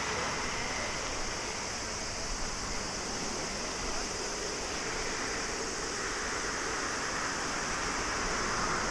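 Airbus A321neo's turbofan engines at taxi idle as the airliner rolls slowly past: a steady, even rushing hiss, with a faint high whine in the first couple of seconds.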